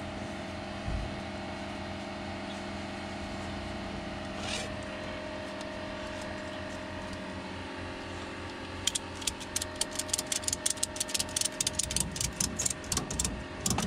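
Ratchet tie-down strap being cranked tight, its pawl clicking in a quick run of clicks, several a second, starting about nine seconds in. A steady low hum runs underneath.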